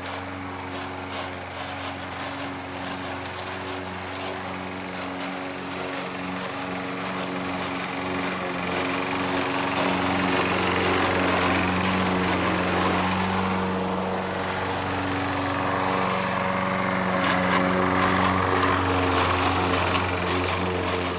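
Toro Recycler walk-behind mower's small engine running steadily under mowing load, with the grinding of its failing self-propel transmission. The sound swells louder about halfway through and again near the end.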